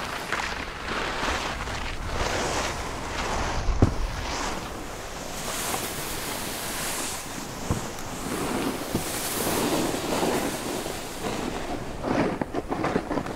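Skis carving and spraying through fresh powder snow: a run of rushing hisses that swell and fade, with wind. A short low thud about four seconds in.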